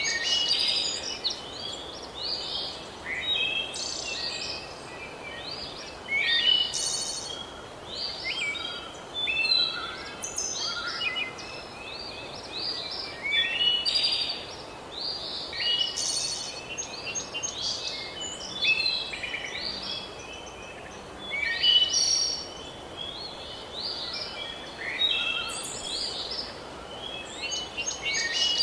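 Several songbirds singing and chirping continually in a dense chorus of quick, high calls, over a steady background hiss.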